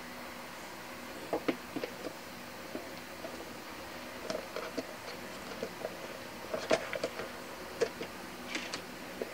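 Hands handling a white cardboard smartphone box and its contents: scattered light taps, clicks and rustles of packaging, with the loudest sharp knocks about two thirds of the way through.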